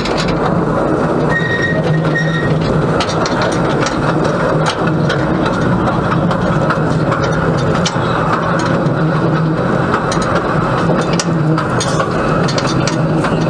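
Small narrow-gauge steam locomotive, a replica of a Lewin 0-4-0, running along the track, heard close up: a steady, loud running rumble of engine and wheels on rails with scattered clicks. A brief high steady tone sounds about a second in.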